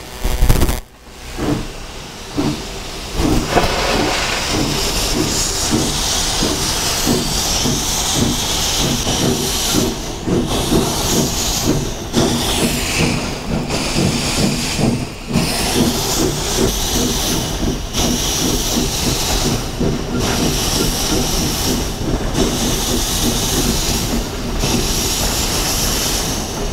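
Virginia & Truckee No. 29, an oil-fired steam locomotive, running under way, heard from inside the cab. A steady hiss of steam sits over a rhythmic exhaust beat and the rumble of the running gear, and the sound dips out briefly several times.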